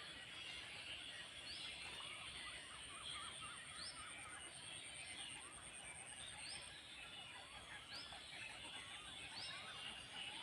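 Faint outdoor ambience of birds calling: a short rising chirp repeats every second or two among other warbling calls, over a steady high-pitched pulsing trill.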